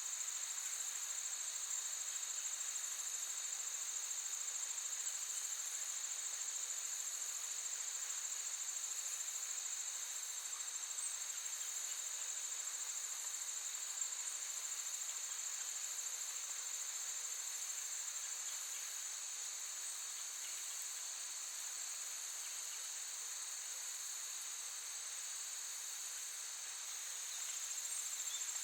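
Crickets chirping in a steady, continuous high-pitched chorus, dipping a little in loudness near the end.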